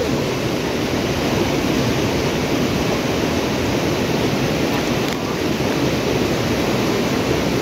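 Fast-flowing Myagdi River rushing as a steady, even wash of water noise.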